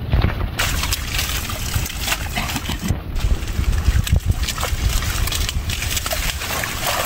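Water hyacinth leaves and stems rustling and water sloshing as the plants are pulled and pushed about by hand in shallow water, in many short irregular crackles and splashes.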